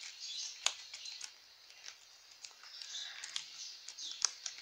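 Hands rubbing and stretching a latex balloon as it is peeled off a small plastic doll: soft rubbery rustling with a few sharp little clicks.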